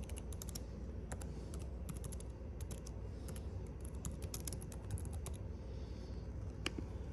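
Typing on a laptop keyboard: quick runs of key clicks for about five seconds, then a pause and a single keystroke near the end.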